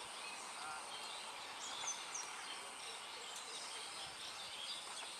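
Faint outdoor ambience of steady hiss with small birds chirping, a few short falling chirps about two seconds in, and a thin steady high whine underneath.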